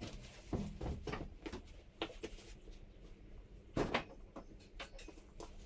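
A few scattered knocks and clunks of objects being handled, with the loudest knock about four seconds in.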